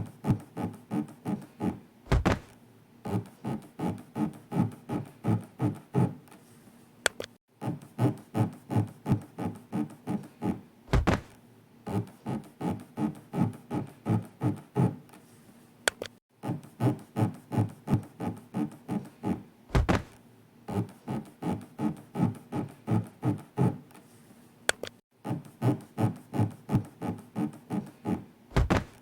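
Rhythmic scraping sound effect, about three to four rubbing strokes a second, in runs of four to five seconds. The runs are broken alternately by a brief pause and a single low thud, a cycle about every nine seconds, pacing an 'elevator breathing' exercise in which an imagined floor rubs up and down the inside of the body.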